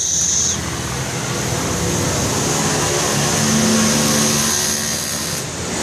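A motor vehicle engine running over a steady hiss, its low hum swelling a little past the middle and easing off near the end.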